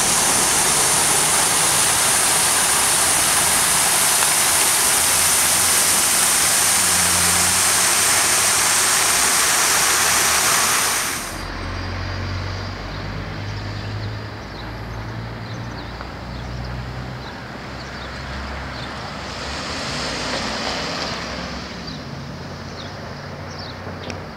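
Fountain jet splashing into its basin, a loud steady rushing hiss that cuts off sharply about eleven seconds in. Then comes the low rumble of road traffic, with a truck's engine among it, and one vehicle swells past a few seconds before the end.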